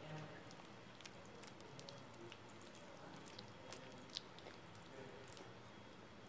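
Near silence with faint scattered small clicks and ticks, and one sharper click about four seconds in.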